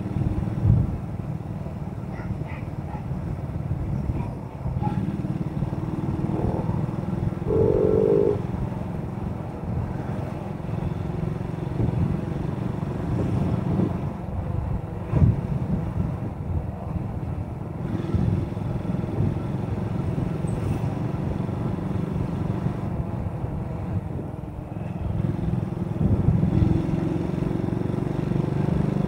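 Motorcycle engine running steadily while riding, heard from a camera on the bike with road and wind rumble. A brief higher-pitched tone sounds about eight seconds in.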